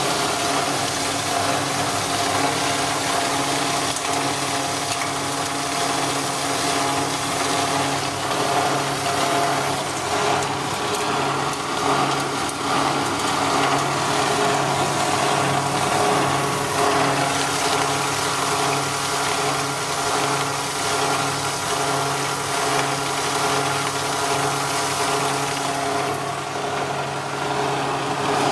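Chili coarse-crushing machine running steadily: a constant motor hum under the noisy rush of dried chili being crushed and falling from the steel discharge chute.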